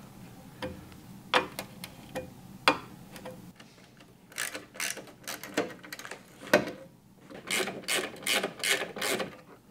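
Ratchet wrench clicking as small 5/16 in. screws are backed out of a sheet-metal cover panel. A few separate clicks and knocks come first, then a run of quick ratcheting strokes from about three and a half seconds in.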